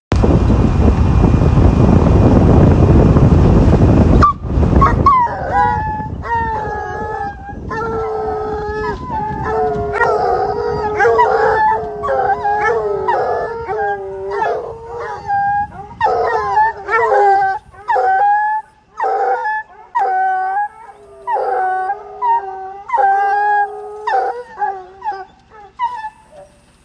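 A loud rushing noise for about the first four seconds, then a bear hound baying on a hot track: repeated drawn-out bawls, roughly one a second, some overlapping.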